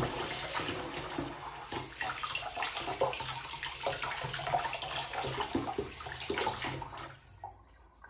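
Kitchen tap running, its stream splashing over hands and a plant cutting into the sink as the roots are rinsed; the water is turned off near the end.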